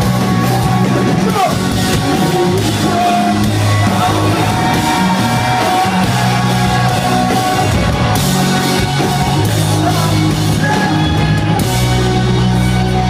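Rock band playing live at full volume, bass and guitars holding sustained notes, with singing and yells from the crowd, heard from inside the audience.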